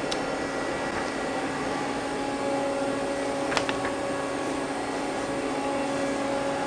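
Steady hum of a powered-up Mazak CNC lathe and its control cabinet, with a low steady tone and a fainter higher one. A sharp click comes just at the start and a quick double click about three and a half seconds in.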